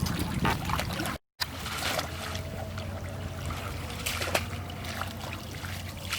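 Water trickling and splashing, with scattered short knocks and splashes over a steady low hum.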